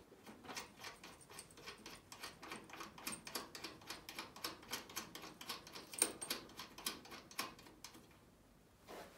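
Faint, rapid light metallic clicking, several clicks a second, as a small nut is spun by hand onto the threaded end of a throttle cable at its mounting bracket; the clicking stops about eight seconds in.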